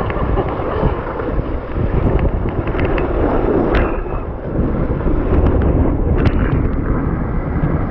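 Rushing water and wind buffeting the microphone as a rider speeds down a water slide, with scattered knocks and bumps.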